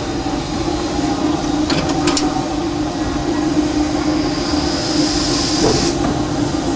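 Steam locomotive cab: a steady hum and rumble, a few clicks about two seconds in, then a hiss of steam that swells from about four seconds in and cuts off suddenly near six seconds as the throttle is worked to start the engine moving forward after it stuck on dead center.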